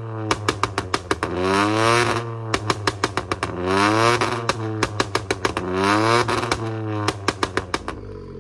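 Ford Fiesta's 1.0-litre turbocharged three-cylinder engine revved about three times, the note rising and falling back, with quick runs of sharp pops from the exhaust as the revs drop. The sound fades out near the end.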